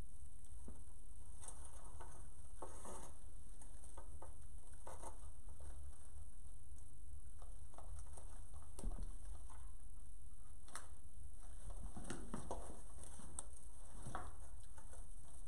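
Scattered rustling and crinkling of burlap deco mesh and twist ties being handled, with a few sharp clicks, over a steady low hum.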